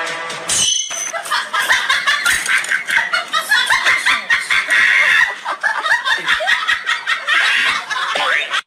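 Laughter in rapid, continuous bursts, starting about a second in and cutting off sharply at the end.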